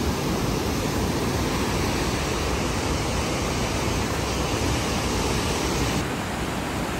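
Mountain river rushing over rocks: a steady, even roar of white water, dropping slightly in level about six seconds in.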